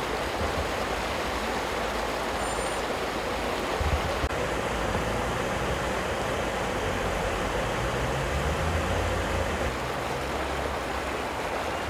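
Steady rush of floodwater flowing across a street, with the low rumble of a car driving through the water that swells about four seconds in and again near the end.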